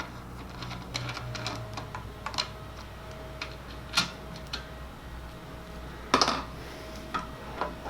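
Scattered light clicks and taps of metal parts being handled and fitted on a bare sequential gearbox while its shift detent is mocked up, with a louder clatter about six seconds in.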